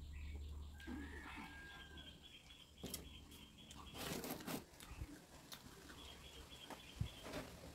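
Eating sounds: fingers mixing rice and dal on a steel plate, and chewing, with a few short noisy bursts about three and four seconds in. Under them a bird chirps quickly and repeatedly in the background.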